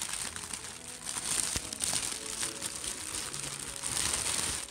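Clear plastic packaging bag crinkling loudly as hands unwrap it, a dense run of small crackles.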